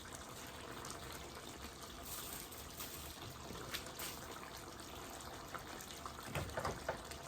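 Pot simmering on the stove: a faint steady watery hiss with a few small pops.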